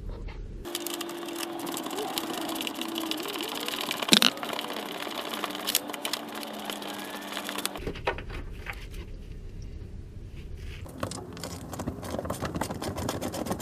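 Power tool running on the lower fan shroud's 10 mm bolts with a steady motor whir and rattle. It stops abruptly about eight seconds in, and lighter rattling and ticking follow.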